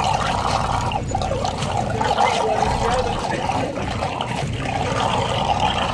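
Running, trickling water over a low, steady rumble.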